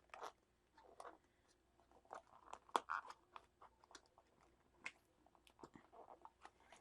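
Faint crinkling and scattered small clicks of a diamond painting kit's plastic packaging being handled as contents are pushed back into it.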